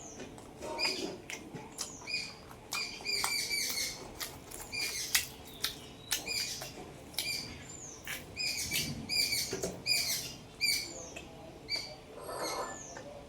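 Close-miked wet chewing and lip-smacking of a mouthful of luchi with mutton gravy: a steady run of small clicks and short squeaky smacks.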